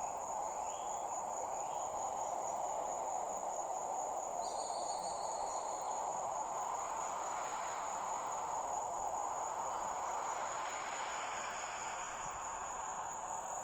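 Crickets chirring in one steady, unbroken high trill over a constant low hiss, with a brief second tone about four and a half seconds in.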